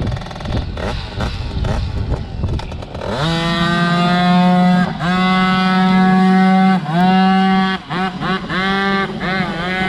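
Small youth motocross bike engine revving hard in thick mud: uneven, lower running at first, then about three seconds in it climbs to a loud, steady high-revving buzz, held with two brief lifts off the throttle, and ends in a string of quick rev blips as the bike gets going again.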